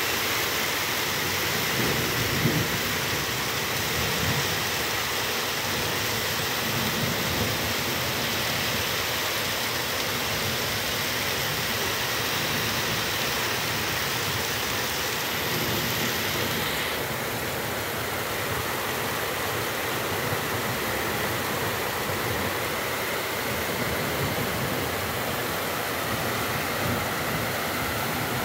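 Heavy rain pouring down in a steady hiss. The top end of the hiss turns a little duller about 17 seconds in.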